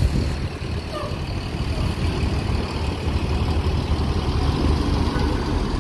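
Tour coach with a Jetbus 3 HDD body, its engine running steadily as it drives slowly up a ferry's loading ramp.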